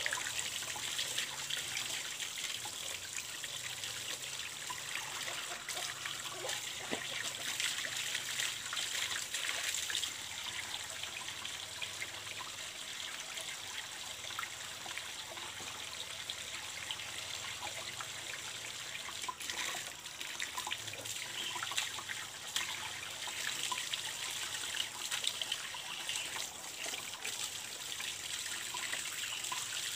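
Water running steadily from the end of a PVC pipe, with irregular small splashes as cloth diapers are rinsed by hand in the flow.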